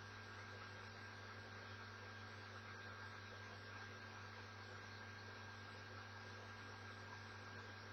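Near silence: a steady low electrical hum with faint hiss, room tone.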